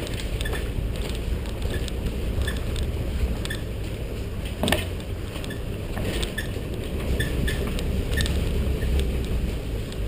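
A 4x4's engine runs at a low, steady crawl, with scattered clicks and knocks from the tyres and body working over rocky ground. One sharper knock comes about four and a half seconds in.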